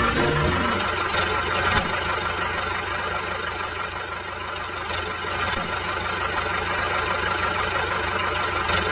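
A small motor running steadily, the motor of a DIY miniature tractor.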